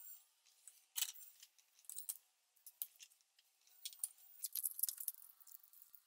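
Faint, sped-up handling noise from small workbench work: a quick scatter of light clicks, taps and metallic clinks as wire, tools and putty are handled. There is a sharper knock about a second in and a denser clatter near the end.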